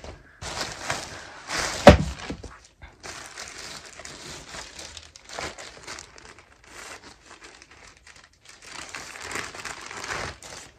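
Packaging crinkling and rustling as clothes are handled, with a sharp knock about two seconds in.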